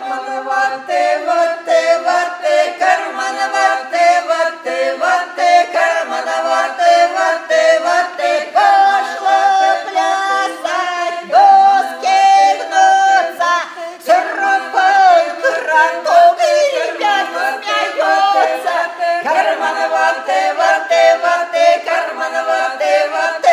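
A small group of women folk singers singing a cappella in close harmony, a rhythmic song of short, pulsing syllables with no instruments.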